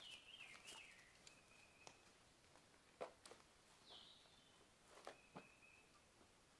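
Faint birdsong: a wavering phrase that falls in pitch at the start, then a few held whistled notes. A few soft footsteps sound in between.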